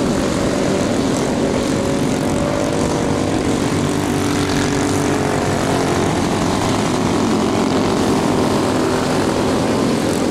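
Several small 120cc kids' race snowmobiles running together, their engines buzzing, with overlapping pitches that rise and fall as the sleds speed up and slow down.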